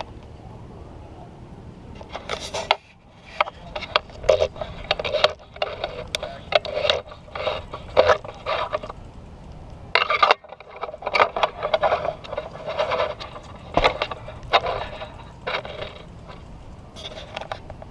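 A long run of irregular knocks and scrapes, some of them loud, with a steady background noise underneath.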